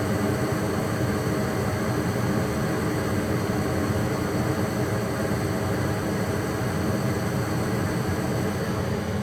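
Goodman gas furnace fan running steadily, a loud even rush of air with a low hum, just after kicking on once the burners have lit.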